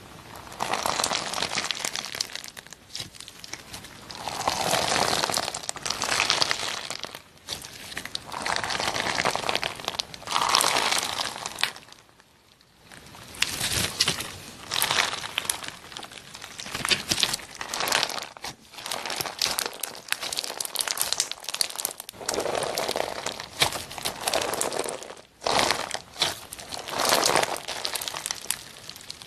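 Foam-bead slime (floam) being squeezed and stretched by hand, crackling and crunching densely as the beads pop and rub. The crackle comes in waves a second or two long, with a short lull about twelve seconds in.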